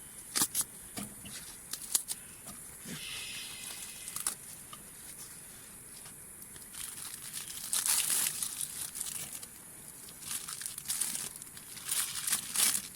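Leafy vegetable leaves being torn apart by hand, in crisp crackling rips with short pauses between them. The loudest bursts come about a third of the way in and again in the last few seconds.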